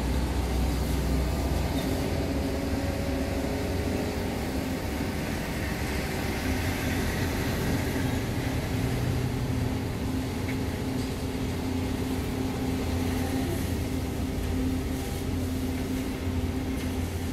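Excavator diesel engines running steadily under hydraulic digging work, a constant low drone with a few steady tones.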